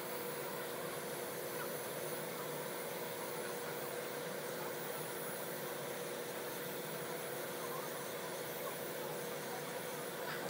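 Electric nail drill running steadily with a constant mid-pitched whine, its bit filing along the edge of a toenail.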